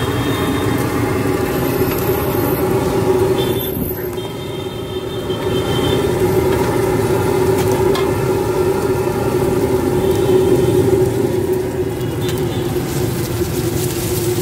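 Steady road traffic noise from the street beside the food cart, dipping briefly about four seconds in and growing louder around ten seconds in.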